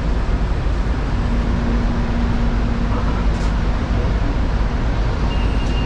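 Steady low rumble and hum of an MRT Line 3 train heard from inside the car, with a single click about three and a half seconds in and a brief high beep near the end.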